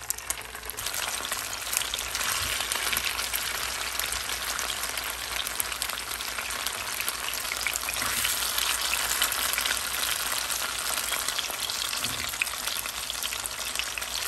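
Slices of a steamed tofu-skin and seaweed vegetarian roll sizzling and crackling in a little oil in a frying pan. The sizzle builds about a second in as more slices go into the oil, then holds steady.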